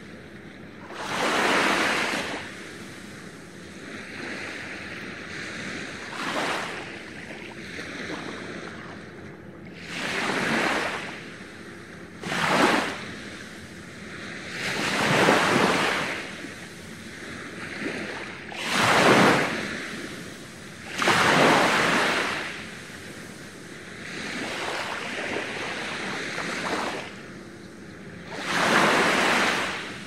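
Small waves breaking at the edge of a sandy beach, each wash swelling and fading over a second or two, every two to four seconds, with quieter lapping water between.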